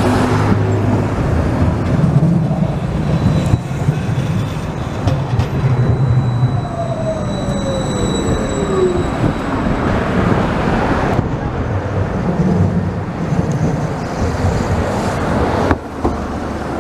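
Hiroshima Electric Railway street trams running past at close range among road traffic: the Green Mover low-floor tram's electric traction gives a thin high whine and a whine that falls in pitch about halfway through as it goes by. Near the end another tram rolls past alongside.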